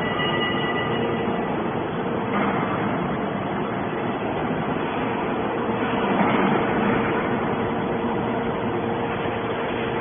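Steady industrial machinery noise: a constant hum under a rushing mechanical noise, swelling briefly about six seconds in.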